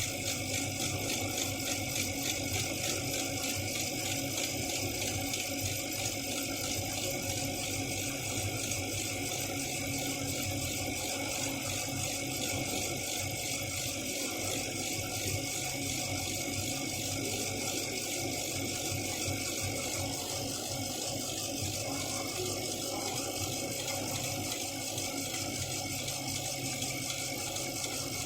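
Small desktop CO2 laser engraving machine running a job on acrylic: a steady mechanical whir and rattle from the moving laser head and the machine's fans.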